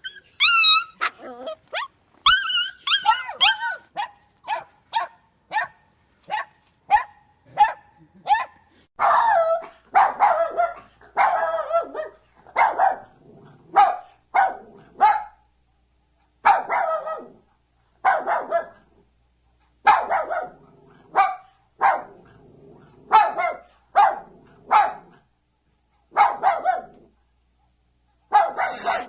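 Dogs barking: rapid high-pitched barks for the first eight seconds or so, then lower barks repeated in short runs with brief pauses.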